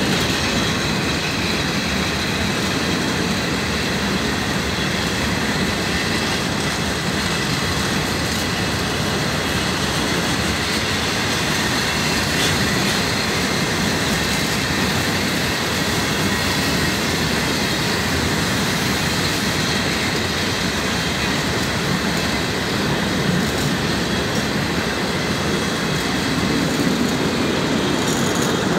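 Freight train of flat wagons loaded with long steel rails rolling slowly past, a steady noise of wheels running over the track. Near the end its Vossloh G 2000 BB diesel-hydraulic locomotive draws close.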